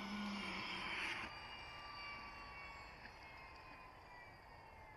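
Electric 600-size RC helicopter (Align T-Rex 600E under a scale MD500E body) spooling down on the ground: the motor and rotor whine falls steadily in pitch and fades as the blades coast toward a stop. A rushing noise and low hum cut off about a second in.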